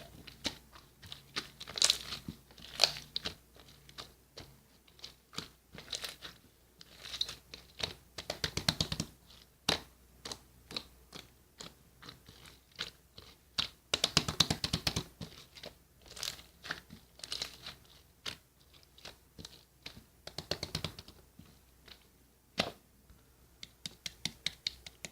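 Pompom slime being pressed and squeezed by hand, giving bursts of crunchy crackling and popping clicks with short pauses between, densest twice in longer runs.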